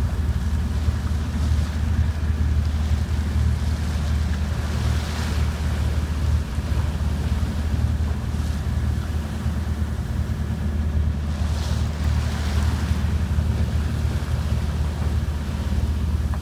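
A lifeboat's engine droning steadily under way, with sea water rushing and splashing along the hull; the wash swells briefly twice, about five seconds in and again near twelve seconds.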